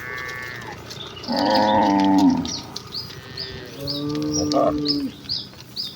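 Cattle mooing: three calls, the first higher-pitched and short, then two longer, deeper moos about a second and a half in and about four seconds in. Short high chirps repeat faintly behind them.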